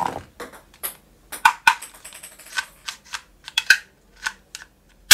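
Plastic toy pistols handled and worked by hand: a run of irregular sharp plastic clicks and clacks, several coming in quick pairs and triplets.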